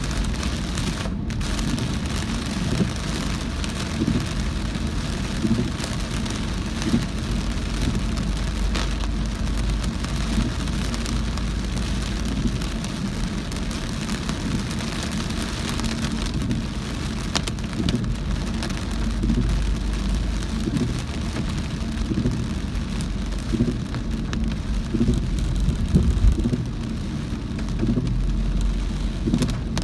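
Heavy rain pattering steadily on a moving car, over the low rumble of the car driving on a wet road. Scattered louder drops and splashes stand out from the rain.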